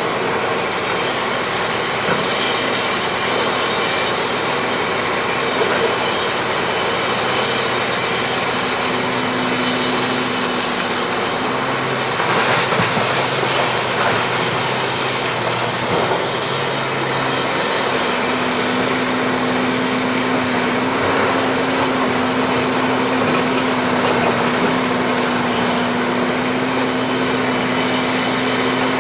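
Large hydraulic excavator working: a loud, steady mechanical noise with a low engine hum whose pitch changes about halfway through.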